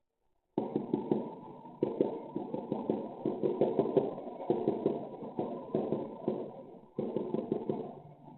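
Strange rumbling booms from the sky, coming in four waves of rapid crackling impacts. Each wave starts suddenly and then fades: about half a second in, near two seconds, at four and a half seconds and at seven seconds.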